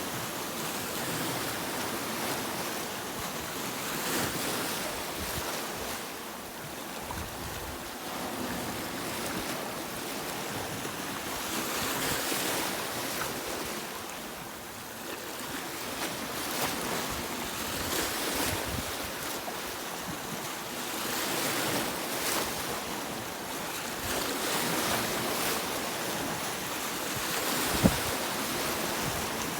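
Sea waves breaking and washing on a shore: a steady rush of surf that swells and eases every few seconds. One sharp click stands out near the end.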